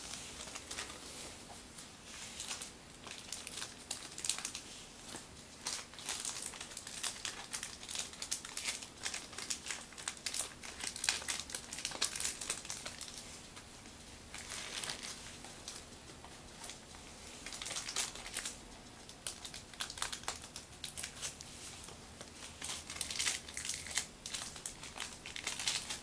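Plastic packaging crinkling and crackling as it is handled and unwrapped, in irregular spurts with short lulls.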